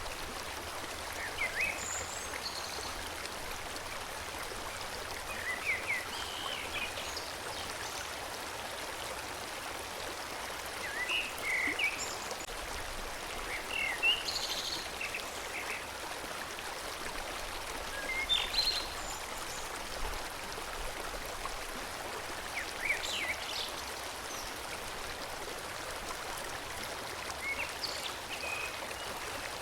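Forest stream flowing steadily, with short bird chirps and calls every few seconds.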